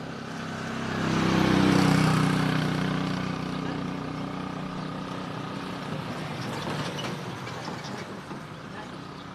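A motor vehicle's engine passing by, swelling about a second in and then fading slowly, with a few faint clicks of hands working on the generator.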